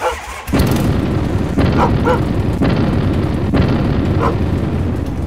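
A loud, deep engine rumble that starts suddenly about half a second in, with a few short dog barks over it.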